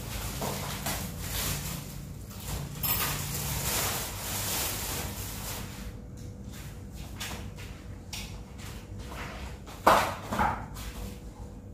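Thin plastic shopping bag rustling as it is carried and set down on a table, with footsteps and small knocks. Two sharp thuds come about ten seconds in.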